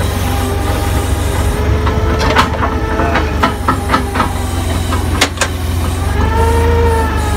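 Forklift engine running steadily while it carries a hard top on its forks, with a spell of clattering rattles in the middle and one sharp knock a little past five seconds. Near the end the engine note swells and rises slightly.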